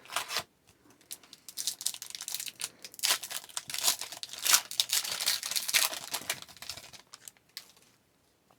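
Hockey card pack's foil wrapper crinkling and tearing as it is opened by hand, with rustling that stops about seven seconds in.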